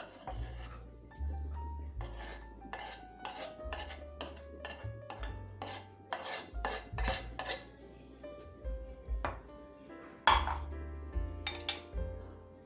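Diced peppers scraped off a wooden cutting board into a frying pan: a run of quick scrapes and taps of blade and board on the pan, with a sharper knock about ten seconds in. Background music with a steady bass plays underneath.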